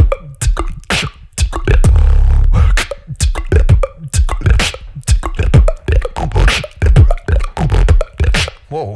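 Solo vocal beatboxing into a handheld microphone. A deep bass note is held for about a second and a half, starting about a second in, then a fast run of sharp percussive hits follows.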